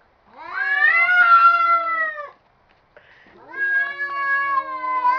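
Domestic cats yowling in a fight standoff: two long, drawn-out yowls, the second starting about three seconds in.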